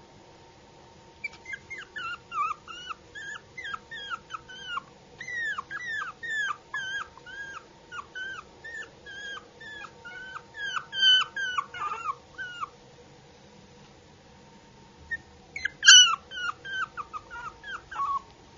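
A puppy whimpering: short, high-pitched cries that each fall in pitch, several a second, in one long run and then, after a short pause, a second run near the end whose first cry is the loudest.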